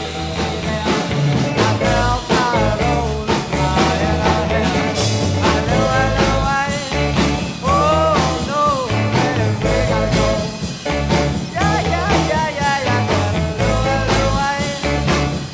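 Background music with a steady beat and a sliding melody line.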